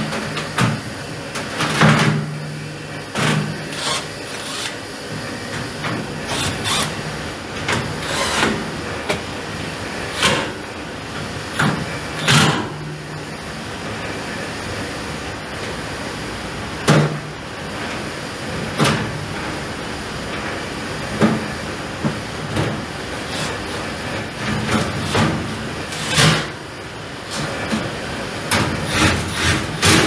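Stainless steel side panel of a Stoelting soft-serve ice cream machine knocking and clanking against the cabinet again and again as it is worked into place, over the steady hum of the running machine.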